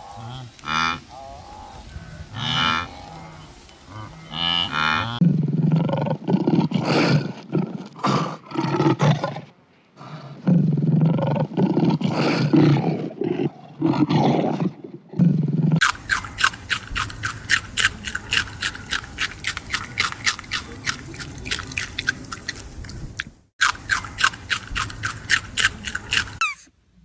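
A series of animal calls: short calls at first, then loud, low, rough calls for about ten seconds, then a fast run of short repeated calls, several a second, that stops shortly before the end.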